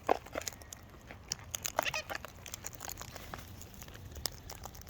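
Wild birds feeding: a run of small clicks and taps from beaks and feet, with a short squawk about two seconds in.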